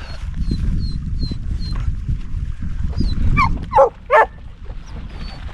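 Wind rumbling on the microphone, with a bird's short high chirps repeating a few times a second, then three quick yelping animal calls a little past halfway.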